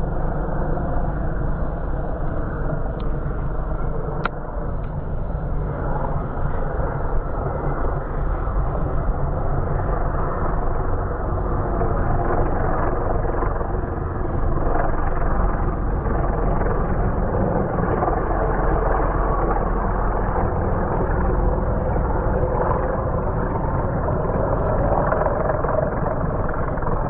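Piston engines of a vintage de Havilland twin-engined biplane airliner running steadily, with a continuous low rumble.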